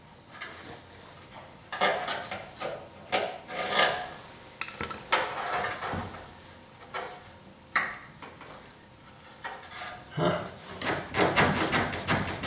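Irregular scraping, rubbing and knocking of hands and fittings against a steel fuel tank from underneath a pickup, as a rubber filler coupler and its hoses are worked loose. The noises come in scattered bouts, busier near the end.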